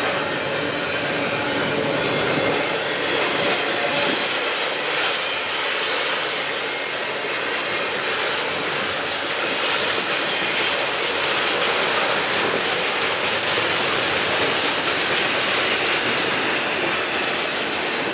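Double-stack intermodal container cars rolling steadily past at speed: a continuous noise of steel wheels on rail.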